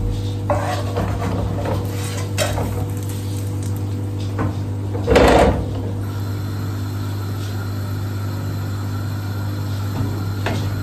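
Household clatter: scattered light knocks and bumps, with one louder thump about five seconds in, over a steady low hum.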